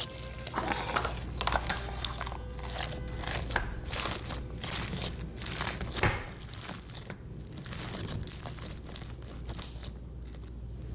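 Crunchy slime being squeezed and pressed, giving a dense run of crackling crunches that thin out near the end, over a steady low hum.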